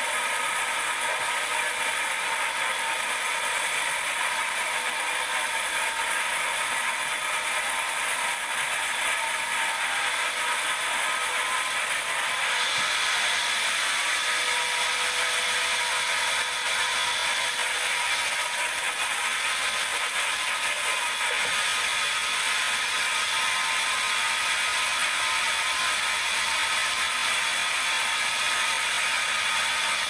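Band sawmill cutting a teak log: the blade and carriage machinery run with a steady, high-pitched mechanical noise throughout.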